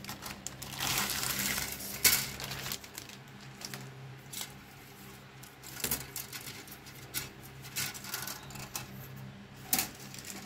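Stiff clear plastic bag crinkling as a plastic model kit sprue is slid out of it, followed by sharp clicks and taps of the hard plastic sprue being handled and set down. The rustle comes in the first two seconds, ending in the loudest click.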